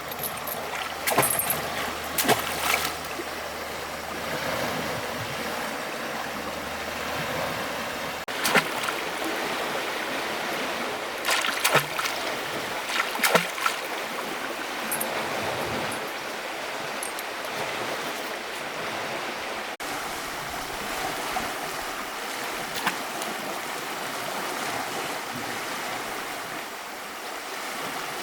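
Running water, a steady rush, with a few short knocks and clinks near the start and a cluster of louder ones about halfway through.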